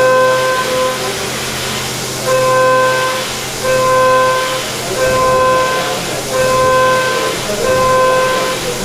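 CNC machining center at work: a pitched machining tone sounds for about a second at a time and repeats roughly every second and a half, over a steady hiss.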